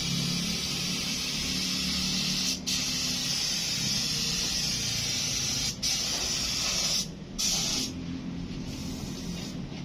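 A steady hiss, like air or a spray, broken twice by a brief gap and then by a longer gap about seven seconds in, after which it is fainter.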